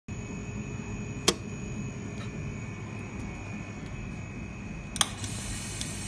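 Two sharp clicks about four seconds apart, the first a little over a second in, over a steady machine hum with a faint high whine.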